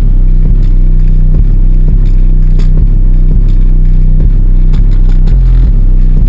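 An ultra-low bass song played very loud through two first-generation Rockford Fosgate T1 12-inch subwoofers: deep sustained bass notes that step in pitch over a steady beat, with faint rattles on top.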